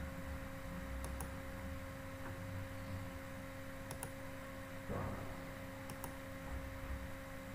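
Computer mouse clicks, a few single clicks a couple of seconds apart, over a steady electrical hum, with a short soft noise about five seconds in.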